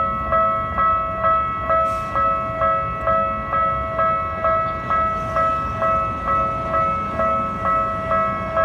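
Japanese railway level-crossing warning bell ringing steadily, a two-tone electronic 'kan-kan' at about two strikes a second, signalling a train approaching or passing.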